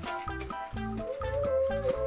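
Instrumental music: a tune of quick short notes over a bass line, with a long held note coming in about a second in.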